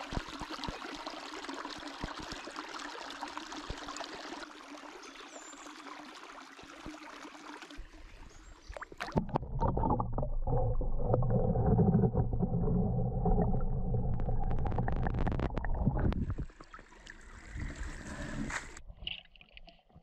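Running stream water for the first eight seconds or so. Then a few knocks and a louder, muffled underwater scraping as a rake drags leaves and silt off the stream bed, heard through a submerged camera.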